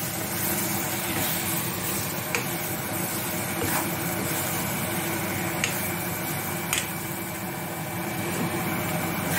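A spatula stirring boiled eggs through thick masala in a kadai over a steady hiss, with a few sharp taps of the spatula against the pan.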